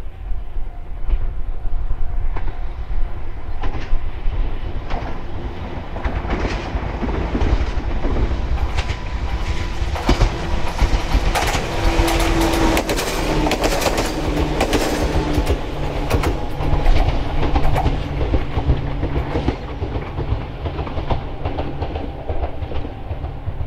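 Toyama Chiho Railway 14760-series electric train approaching and passing close by. Its wheels click over the rail joints most densely as it goes past, with a steady motor hum under the clicking that lingers as it moves away.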